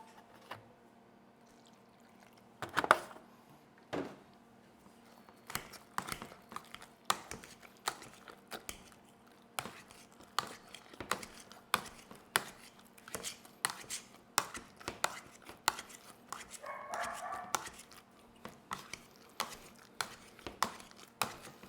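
A utensil knocking repeatedly in a pot of potatoes, two or three sharp knocks a second through most of the stretch. A dog barks loudly just under three seconds in, and a dog voices again for about a second around two-thirds of the way through.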